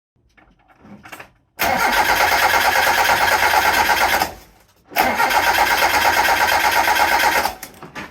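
Hyundai Excel's starter motor cranking the engine in two bursts of about two and a half seconds each, a short pause between them, without the engine catching: a no-start, with no spark reaching the plugs after a short burnt the wiring loom.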